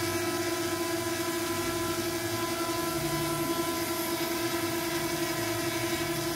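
A steady, unchanging hum with a whine over it, with no breaks or changes in pitch.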